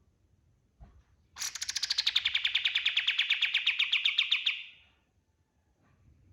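Kapas tembak songbird singing a rapid, even trill of about ten notes a second, high-pitched, starting about a second and a half in and lasting about three seconds.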